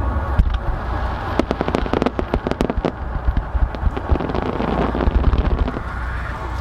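Fireworks going off in quick succession in a starmine volley: a rapid run of sharp bangs and crackles, densest in the first half, over a continuous low rumble.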